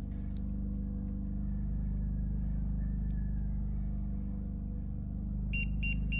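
Small 120-volt portable generator engine running steadily. About five seconds in, a Pecron E3600LFP power station starts beeping rapidly, about four beeps a second: its warning that it is not getting power from both sides.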